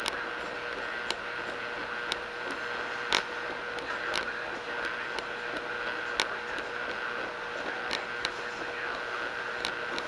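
1980s Speed Queen Maxi Load top-load washing machine running: a steady mechanical hum with a constant tone, broken by sharp clicks roughly once a second.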